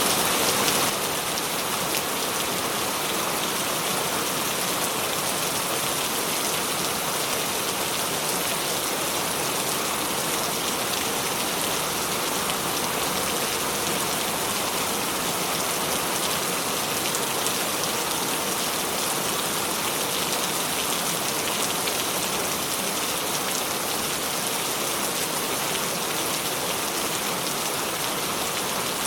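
Steady rain: an even hiss of falling drops, a little louder for the first second, then constant.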